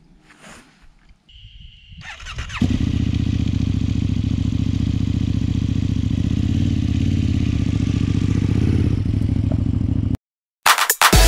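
KTM Super Duke V-twin motorcycle engine starting about two seconds in, then idling steadily for about seven seconds before cutting off suddenly.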